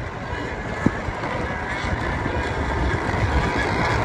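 Radio-controlled racing boats running flat out across the water, their high engine note growing louder toward the end, with wind buffeting the microphone.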